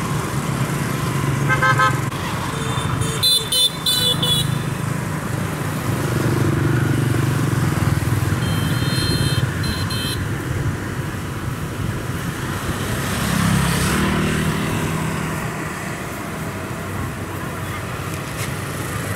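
Kubota DC-70 combine harvester's diesel engine running steadily, with two short spells of high-pitched pulsed tones, about two seconds in and again about nine seconds in.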